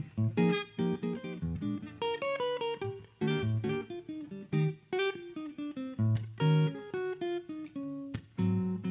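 Solo archtop jazz guitar playing a bossa nova instrumental interlude: plucked chords under a single-note melody, with bass notes on the low strings.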